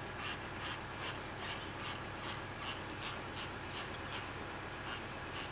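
Grooming brush rubbed over a horse's coat in quick, regular strokes, about three a second.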